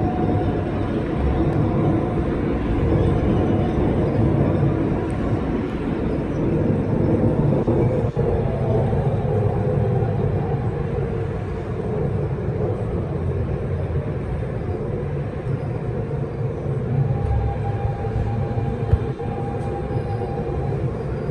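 Kawasaki R160B subway train with Siemens propulsion running at speed between Court St and Whitehall St, most likely in the tunnel under the East River: a steady rumble of wheels on rail with a few faint whining tones that come and go.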